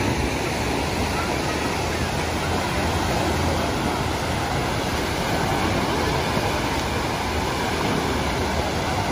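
Steady rush of water from a wave pool's surf washing up the sand and the waterfalls spilling down the artificial volcano, with the chatter of a crowd of swimmers mixed in.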